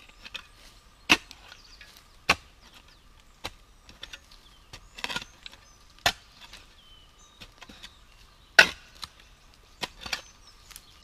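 Shovel blade chopping into forest soil and roots: about eight sharp strikes, a second or two apart, with a short scraping flurry near the middle and the loudest strike near the end.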